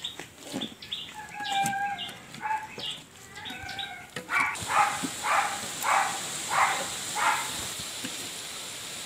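Rural outdoor animal sounds: short bird chirps, then a run of about six animal calls, roughly two a second, starting a little before halfway, over a steady hiss.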